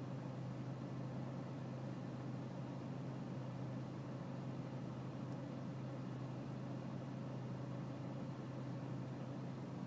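BMW E46 320Cd's four-cylinder turbodiesel idling with a rough idle, a steady low hum that holds an even level throughout.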